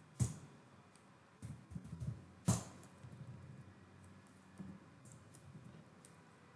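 Scattered clicks of a computer keyboard and mouse, two of them sharper: one about a quarter second in and one about two and a half seconds in.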